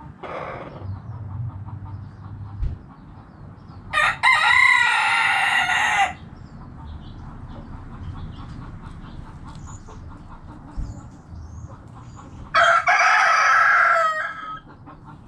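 Roosters crowing twice, each crow about two seconds long: one about four seconds in and one near the end. Hens cluck quietly in the background throughout.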